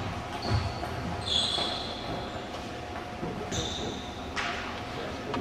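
Sneakers squeaking sharply several times on a gym floor as table tennis players move at the end of a rally, with soft footfalls and a brief rustle.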